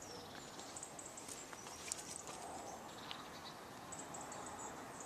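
Faint outdoor background hiss with a few faint high chirps about four seconds in.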